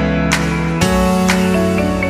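Background music led by a strummed guitar, with a chord struck about twice a second.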